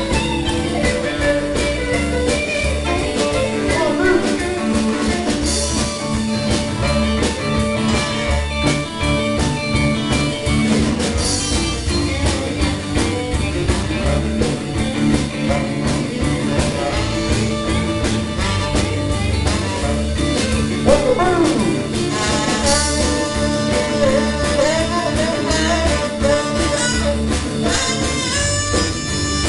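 Live blues-rock band playing an instrumental passage, with electric guitar over a steady drum-kit beat.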